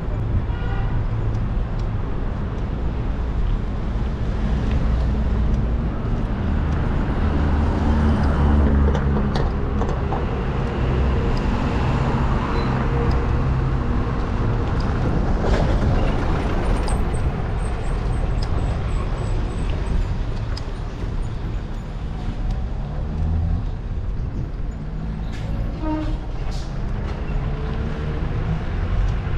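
Street traffic heard from a moving bicycle: cars and a bus pass over a steady low rumble of wind on the microphone.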